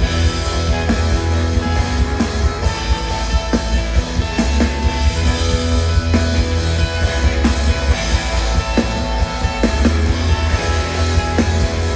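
A live band playing a rock-style song, with a drum kit keeping a steady beat over a heavy low end.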